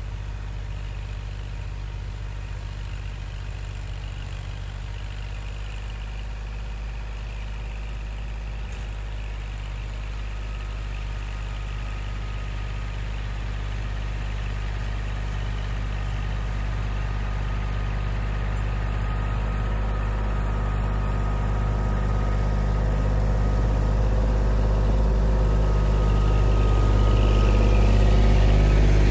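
Kubota L2501 tractor's three-cylinder diesel engine running steadily while driving a rear snowblower. It grows steadily louder through the second half as the tractor comes up close.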